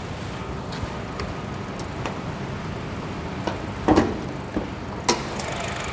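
Honda HR-V engine idling steadily. About four seconds in there is a short clatter and about a second later a sharp click as the bonnet latch is released and the bonnet lifted.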